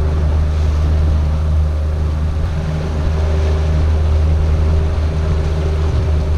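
Boat engine running steadily at slow trolling speed with an even low hum, under a wash of wind and water noise.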